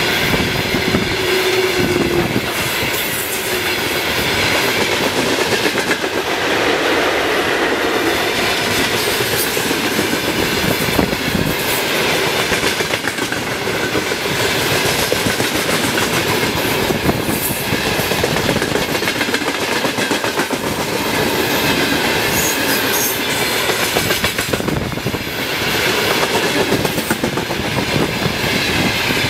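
A train running past, its wheels clattering over the rail joints in a long, steady stream of clicks over the rumble of the cars. A steady tone dies away about two seconds in.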